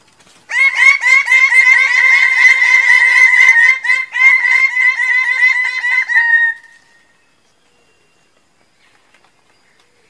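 Bird-of-paradise calling: a loud, rapid run of harsh, repeated notes starts about half a second in and stops at about six and a half seconds.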